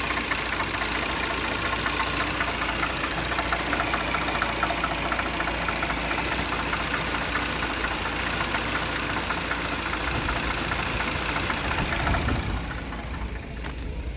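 Peugeot 1.6 THP four-cylinder turbo petrol engine idling cold on a new timing chain, with a fast, even mechanical ticking. It is the normal sound of a healthy chain: a light chain rubbing and a slight cold-engine noise that comes from the cylinder head, not the chain. The sound gets quieter about 12 seconds in.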